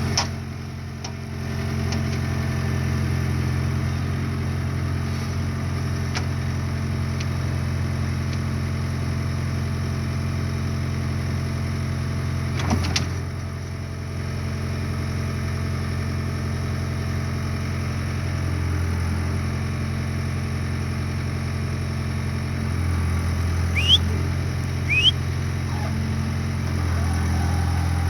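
Skid steer engine running steadily while the machine works a compost pile, with a brief knock about halfway through. Near the end come a few short rising squeaks.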